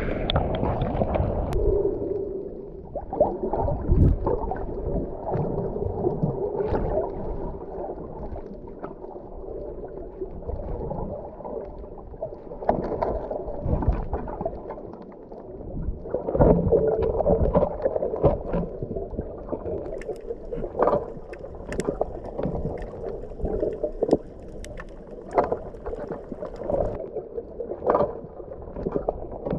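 Muffled water noise as picked up by a camera held underwater, with gurgling and many scattered sharp clicks and knocks.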